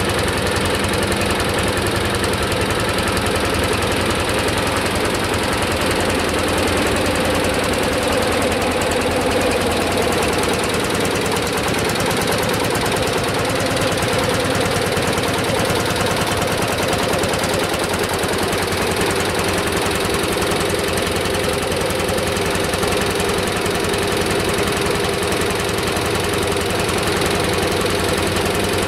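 Single-cylinder hot-bulb two-stroke tractor engine running with a steady, rapid knocking beat.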